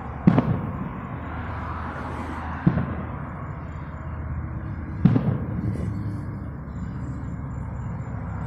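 Firecrackers popping in the distance: a quick string of pops just after the start, a single pop a couple of seconds later, and another quick string about five seconds in.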